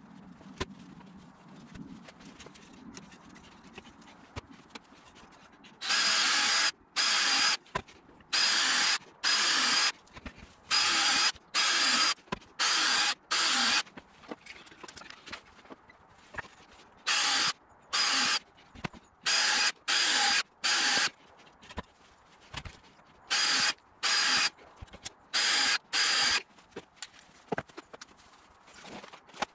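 Cordless drill run in about fifteen short bursts of under a second each, grouped in twos and threes, boring into timber battens, with light handling knocks between the bursts.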